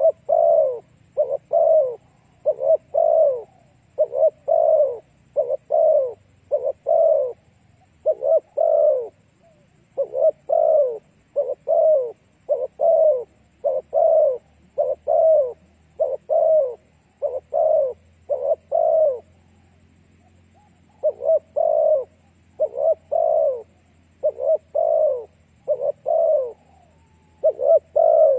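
Spotted dove cooing over and over in phrases of short, low coo notes, with a brief pause about two-thirds of the way through.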